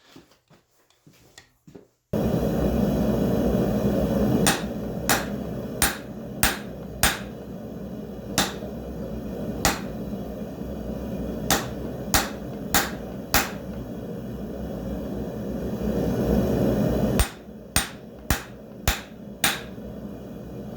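Hand hammer striking a hot railroad spike on the anvil to draw it out, about fifteen blows in groups of a few, roughly one to two a second, each with a short ring. A steady low roar runs behind the blows once they begin, after a near-quiet first two seconds.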